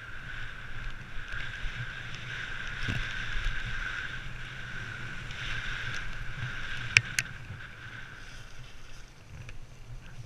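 Ride noise of a downhill mountain bike heard from a helmet camera: a steady rush of wind over the microphone and tyres rolling over dirt and gravel, with a constant buzzing tone underneath. Two sharp clacks about seven seconds in as the bike jolts over the rough ground.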